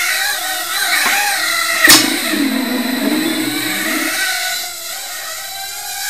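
Brushed motors and propellers of an ultra micro quadcopter spinning up in a high whine whose pitch rises and falls with the throttle. There is one sharp knock about two seconds in, and the whine drops off after about four and a half seconds.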